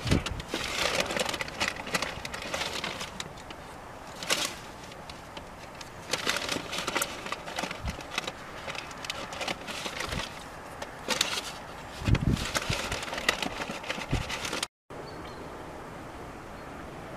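Yellow track-maintenance train rolling past, its wheels and wagons clattering and knocking irregularly on the rails. Near the end it cuts to a steadier, quieter rumble.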